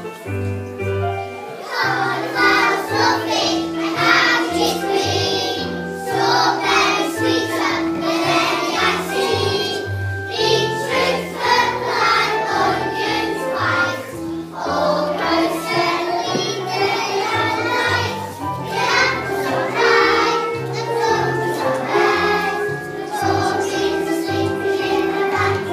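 A group of young children singing a song together, with an instrumental accompaniment playing a steady bass line underneath.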